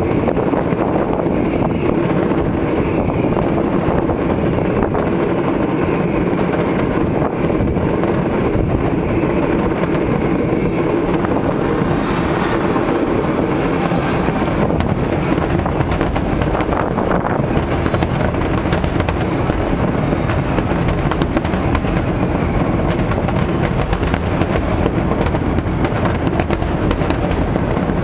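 Aerial fireworks display: a dense, steady barrage of overlapping shell bursts, heard as a continuous heavy rumble with many sharp cracks scattered through it.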